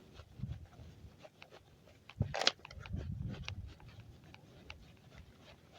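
Handling noise from a phone carried in a pocket: fabric rubbing over the microphone with scattered soft clicks and a sharper knock about two and a half seconds in.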